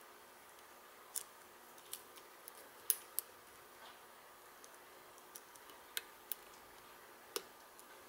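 Lock pick working the pin tumblers of a brass Guard padlock during single-pin picking: faint, irregular small metallic clicks, about a dozen, the sharpest about three seconds in, as the pins are lifted and set.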